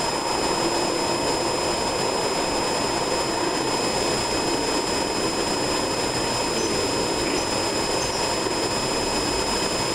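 A steady, loud rushing noise with faint thin high whines on top, like an air blower or fan motor running.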